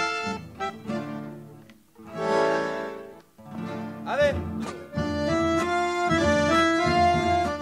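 Instrumental background music led by an accordion playing held, changing chords.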